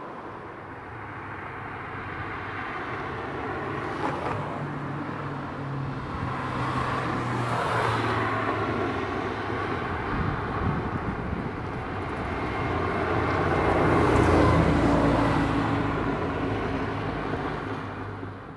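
Road vehicles passing close by: engine and tyre noise swells to a first peak about eight seconds in and a louder one about fourteen seconds in, then fades.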